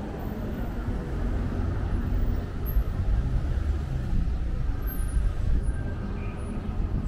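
City street traffic: cars and a truck driving past at an intersection, a low rumble that swells through the middle and eases near the end.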